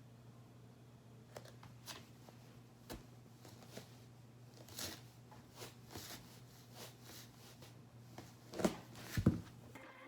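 Small objects being handled: a string of short clicks and rustles over a low steady hum, with two louder knocks about nine seconds in.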